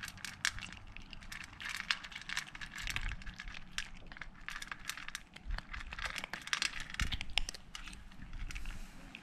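Kittens crunching dry cat kibble from an enamel plate: a dense, irregular run of small sharp crunches and clicks.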